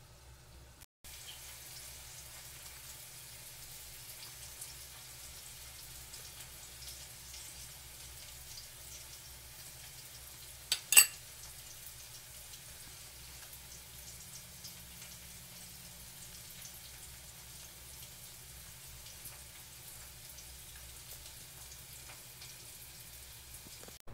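Food sizzling in a hot pan: a steady hiss, broken by two sharp clicks close together about eleven seconds in.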